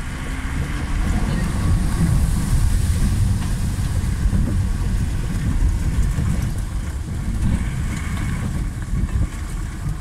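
A vehicle fording a river: a steady low engine rumble under an even rushing hiss of water.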